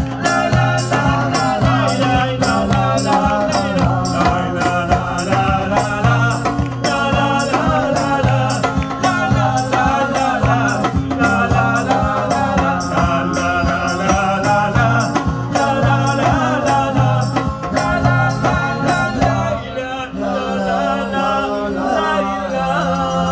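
Live folk music: acoustic guitar and hand percussion keeping a steady, busy rhythm with a rattling sound, and a man singing over it.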